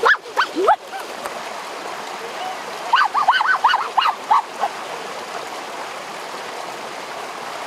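Shallow stream running steadily over rocks, with a few short rising calls at the start and a quick run of short high calls about three seconds in.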